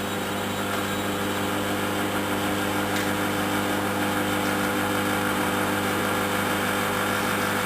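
Microwave oven running mid-cycle: a steady electrical hum with the whir of its fan, while the snacks roast inside.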